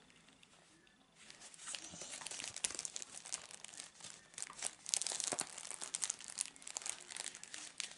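Paper packaging being handled and opened, rustling and crinkling in quick irregular crackles that start about a second in.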